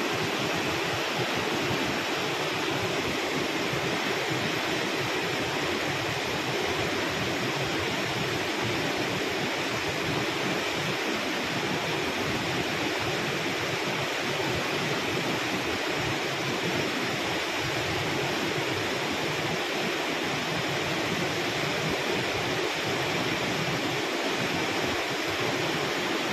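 Swollen, fast-flowing floodwater rushing steadily over rapids.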